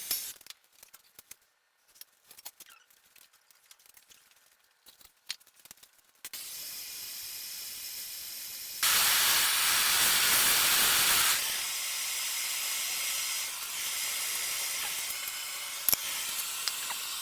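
Steady hiss of a gas heating torch. It cuts out just after the start, leaving a few light clicks for about six seconds, then returns. About nine seconds in it turns much louder and fuller for two and a half seconds before settling back to a steady hiss.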